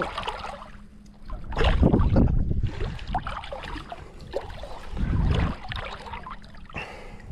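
Shallow water splashing and sloshing in irregular bursts, with small drips and trickles between them and wind now and then rumbling on the microphone.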